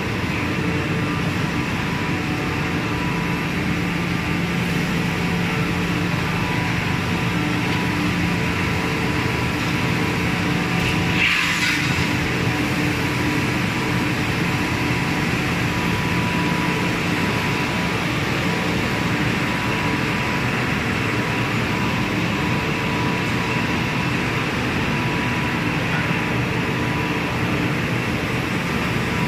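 Steady running noise of factory machinery, a continuous hum with a few faint steady tones underneath. There is a brief louder swell about eleven seconds in.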